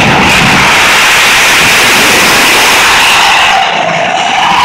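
Jet engine on a golf cart running at full thrust: a loud, steady, hissing roar that dips briefly about four seconds in, then surges again.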